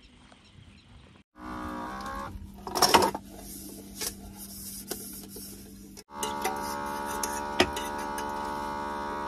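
Small electric water-dispenser pump running with a steady hum while it fills a metal pot. There is a clatter of the pot about three seconds in. The hum cuts out briefly about six seconds in and starts again.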